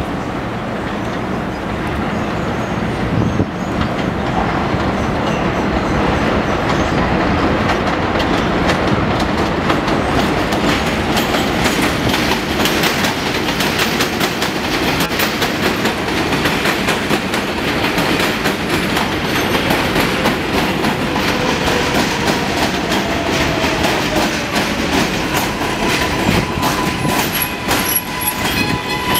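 An R142A subway train runs along the elevated track into the station, its rumble building as it comes near. The wheels clatter over the rail joints, and a thin whine comes in near the end as the train slows.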